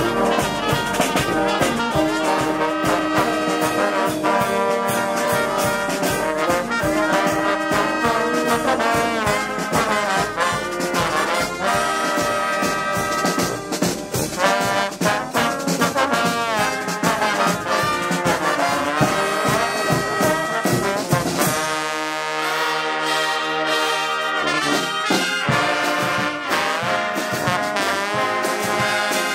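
A marching brass band plays a lively tune: massed trombones and sousaphones over a steady beat on bass drum, snare and cymbals. A little past two-thirds through, the drums and bass drop out for about three seconds, then come back in.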